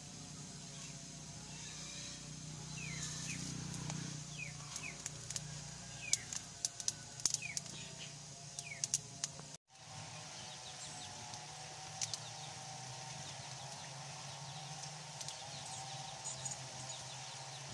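Burning firewood crackling with sharp scattered pops, and faint short bird chirps behind it. After a cut, a steadier low background with a few light clicks as the adobo simmers in the wok.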